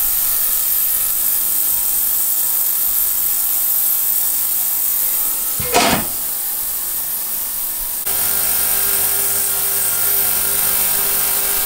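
Ultrasonic parts cleaner running its wash cycle on carburettor parts in water: a steady hiss, with a brief louder swish about six seconds in and a slight change in tone at about eight seconds.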